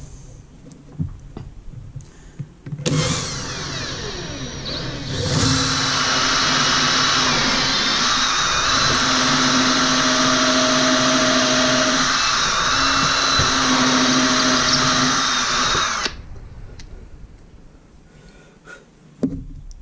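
Ryobi cordless drill boring a dowel pinhole into a block of wood. The motor starts about three seconds in and speeds up, runs loud and steady with the bit cutting for about ten seconds, then stops suddenly.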